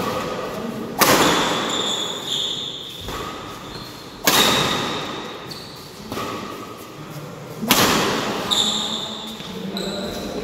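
Badminton rackets striking the shuttlecock three times in a rally, each hit sharp and loud with a long echo off the hall, with short high squeaks between the hits.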